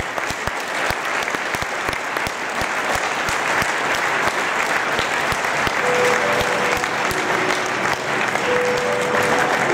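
Audience clapping steadily throughout, with dance music underneath; a few held notes of the music come through from about six seconds in.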